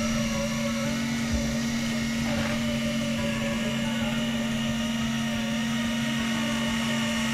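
Electric fishing reel's motor running steadily, a constant whine with a low hum.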